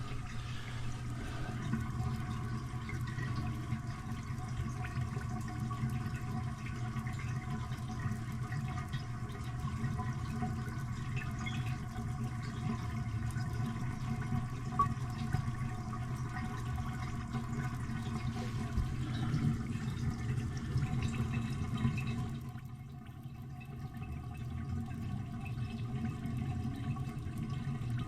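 Toilet tank refilling through its fill valve after a flush, water running steadily with a low hum, and a slow refill. The level drops for a moment about 22 seconds in, then the running resumes.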